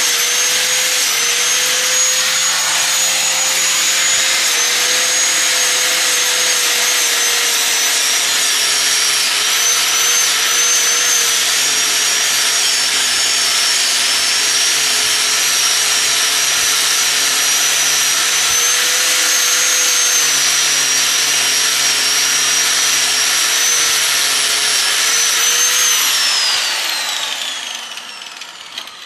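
Small right-angle grinder with a sanding disc running steadily under load, grinding down a weld on an aluminium snowmobile skid rail; its whine wavers slightly as the pressure on the work changes. Near the end it is let off and the whine falls in pitch as it spins down.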